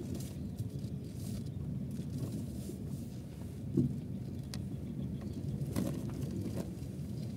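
Car cabin noise while driving slowly over an unpaved dirt road: a steady low rumble of engine and tyres, with a few short knocks and rattles as the car goes over the rough surface.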